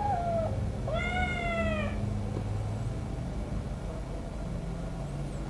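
Kitten meowing twice, a short cry at the start and a longer falling meow about a second in, as its swollen, sprained paw is held; the paw hurts when touched.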